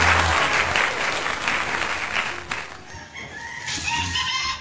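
A steady rushing hiss for the first half, then a rooster crowing: one long call rising and holding from about three seconds in, falling away at the end.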